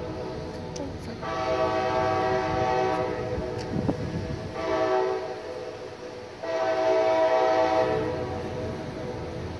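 Brightline passenger train's air horn sounding the grade-crossing signal, a multi-note chord: the end of one long blast, then long, short, long. This is the standard warning as a train nears a road crossing.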